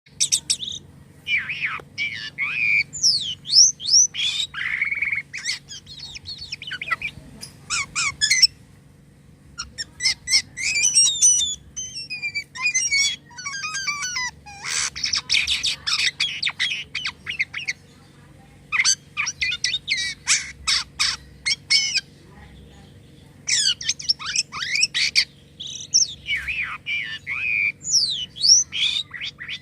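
Jalak kapas starling singing an energetic, varied song of squawks, chirps, sweeping whistles and rapid rattles, in bursts broken by short pauses.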